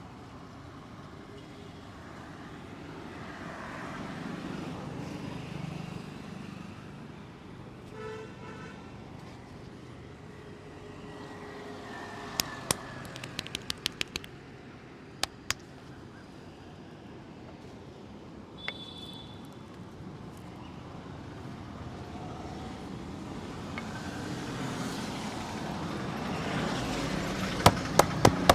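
Street traffic noise that swells and fades as vehicles pass, with a short vehicle horn toot about eight seconds in. Sharp slaps come in a few quick clusters midway, and a fast run of them starts near the end, typical of a barber's rhythmic hand-tapping head massage.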